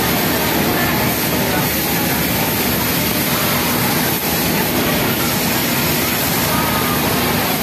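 Industrial flatlock sewing machine running steadily as it stitches elastic onto a waistband, a constant whirring mixed with the steady machine noise of a garment factory floor.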